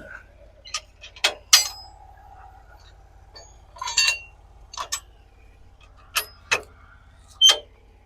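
Metal parts of a sawmill clinking and clanking as they are knocked and adjusted by hand: about nine sharp, irregular strikes. The loudest, about one and a half seconds in, rings on briefly.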